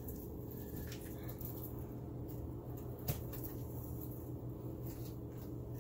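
Quiet kitchen room tone with a steady low hum, and a few faint taps and rustles as onion slices are pressed onto raw seasoned steaks lying on butcher paper.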